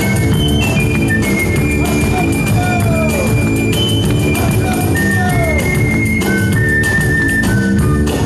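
A live band playing. A small transverse flute carries a high melody of held notes over bass guitar and a steady drum beat.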